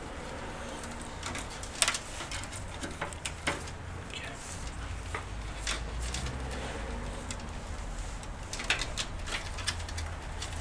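Computer cables and plastic case parts being handled inside a PC case: scattered clicks and rustles, the sharpest about two seconds in and another cluster near the end, over a steady low hum.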